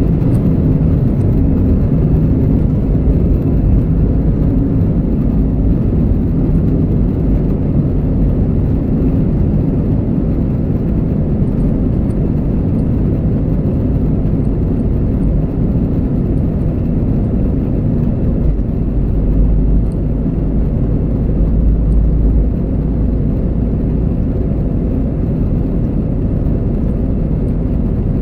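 Airbus A320 cabin noise: a steady low rumble from the jet engines and airframe, with a deeper rumble swelling about 19 seconds in and easing off a few seconds later.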